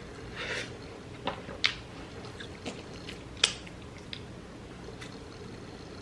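Close-up eating sounds: a handful of sharp clicks and cracks spread over a few seconds, with a soft squishy smear about half a second in, as crab and shrimp shells are broken and chewed.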